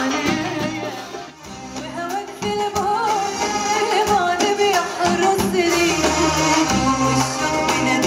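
A woman singing into a microphone with a live band accompanying her. The music dips briefly about a second in, then carries on.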